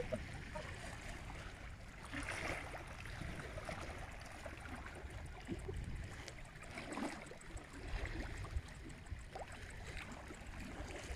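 Choppy, wind-driven lake waves lapping and splashing against a rocky shore, over a steady low rumble, with a few louder surges.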